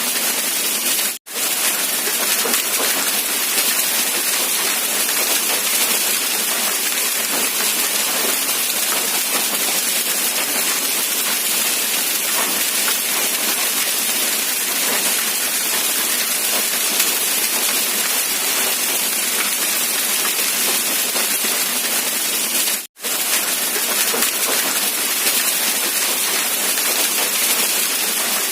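Steady rain falling, an even hiss with no thunder or other sounds. It cuts out twice for a split second, about a second in and again near the end.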